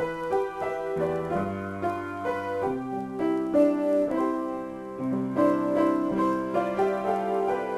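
Piano played in a slow improvisation: sustained chords and melody notes changing about every half second over held bass notes.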